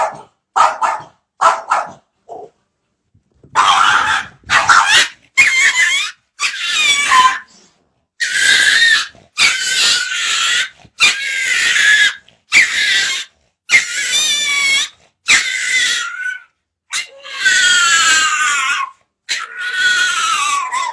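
A dog vocalising: a few short yelps, then a run of about a dozen loud, drawn-out whining cries, each about a second long, several sliding down in pitch at the end.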